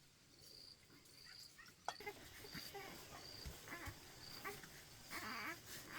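Faint insects chirping in short, evenly pitched bursts, with scattered short animal calls and a sharp click about two seconds in.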